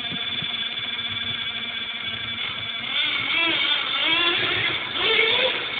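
Hong Nor X2 off-road RC buggy running, its motor's high whine fairly even at first, then rising and falling repeatedly from about three seconds in as it speeds up and slows.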